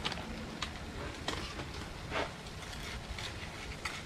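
Scattered short scrapes and rustles of frozen mixed vegetables being handled and stirred with a wooden spoon in a cast iron skillet, over a low steady background noise.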